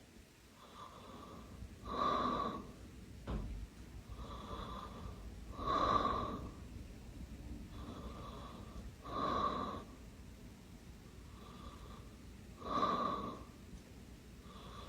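A sleeper snoring in slow, regular breaths: four loud snores about three and a half seconds apart, each after a fainter breath. There is a short knock about three seconds in.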